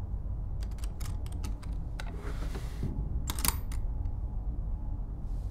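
Wooden dresser drawer with metal ring pulls being handled: a run of light clicks and clinks, a brief sliding rustle, then a sharper clatter about three and a half seconds in, over a steady low hum.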